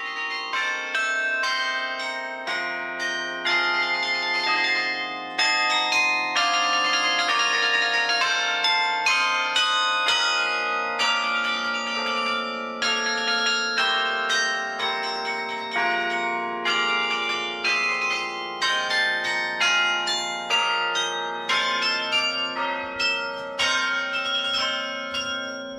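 Carillon played from its baton keyboard: a tune on tuned tower bells, notes struck one after another in quick succession, each ringing on under the next.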